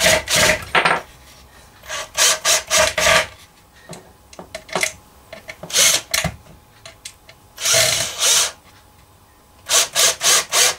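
Power drill run in short trigger bursts, in clusters of three or four quick pulses with pauses between, and one longer run about eight seconds in.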